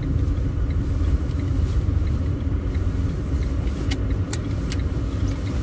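Car driving slowly, heard from inside the cabin: a steady low rumble of engine and tyres as it pulls in to park, with a few light ticks about four seconds in.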